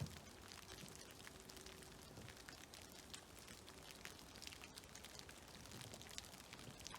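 Melting snow dripping from tree branches: scattered, irregular drips and patters over a faint, steady rush of creek water.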